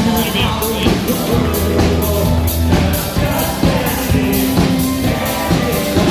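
Live rock band playing a mashup, with drum kit beating steadily under sustained bass and guitar or keyboard lines.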